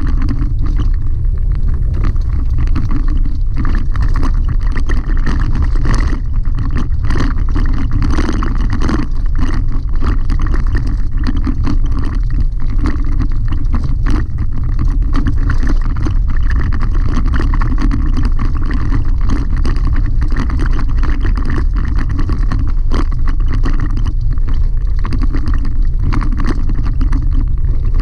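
Pickup truck driving on a gravel dirt road, heard from inside the cab: a steady low rumble of tyres and engine with constant small clicks and rattles from stones and the cab.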